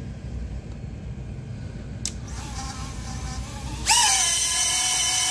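Four VCI 0702 30,000 kV brushless micro motors on a tiny whoop drone spinning their props. A faint whine starts about two seconds in. Near the end it jumps suddenly to a loud, high, steady whine at full throttle, during a thrust pull.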